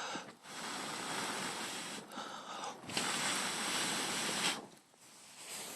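Wind rushing in gusts, a steady hiss that swells twice and dies down near the end.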